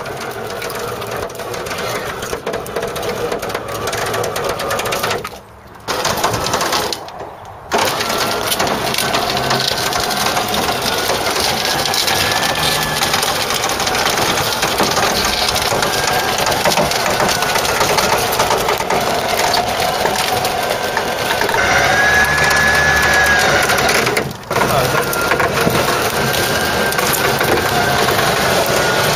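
An electric winch motor whirring steadily as it drags a seized-up old Ford Cortina out of the undergrowth toward a trailer, with branches and brambles crunching under the car. It stops briefly a few seconds in, again shortly after, and once more near the end, the pitch of the whirr rising under load.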